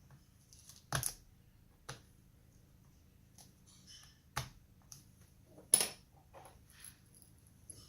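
Hands working on a laptop's screen parts: four separate sharp clicks and taps of plastic, about a second in, at two seconds, at four and a half, and the loudest near six seconds, with faint rustling between.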